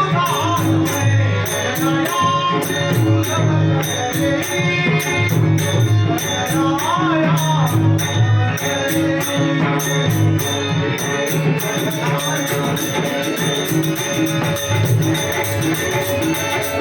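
Marathi devotional bhajan music: a drum and jingling metal hand percussion keep a steady, fast rhythm under a melody line with some singing. The high metallic strokes become denser and quicker about twelve seconds in.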